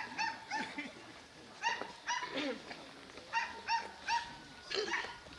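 A series of short animal calls, about a dozen spread irregularly, each a brief pitched cry, some high and arched and a few lower.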